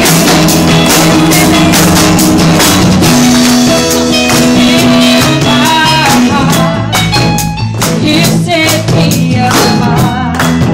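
Live band playing a worship song loudly, with drums and singing.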